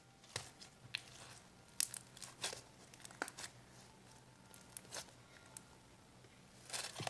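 Pink fluffy slime being stretched, squished and poked by hand, giving faint, irregular little crackles and pops, with a small cluster of them near the end.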